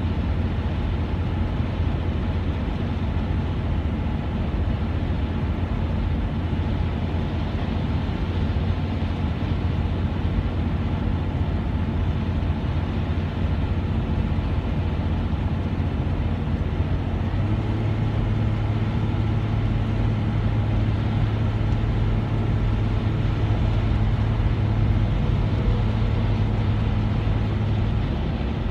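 Car driving at highway speed, heard from inside the cabin: steady road and engine noise. About two-thirds of the way through a louder low drone joins in and holds until just before the end.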